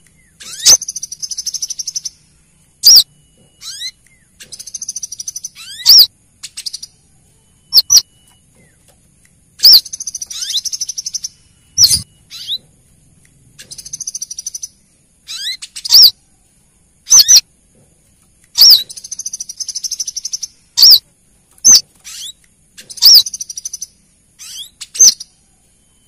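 Female brown-throated sunbird calls used as a lure. Loud, sharp, high single notes come every one to three seconds, alternating with rapid high twittering phrases about a second long.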